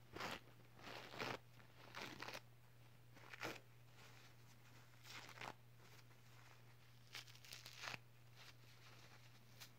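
Paper tissue crumpled and rustled close to the microphone in short bursts every second or two, over a faint steady low hum.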